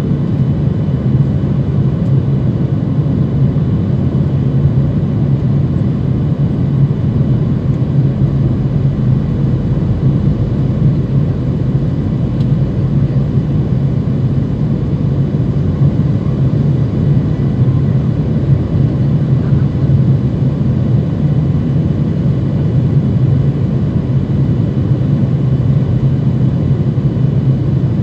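Steady in-flight cabin drone of a Boeing 737-900 heard from a window seat over the wing: its CFM56-7B turbofan engines and airflow make an even low rumble, with faint steady whines above it.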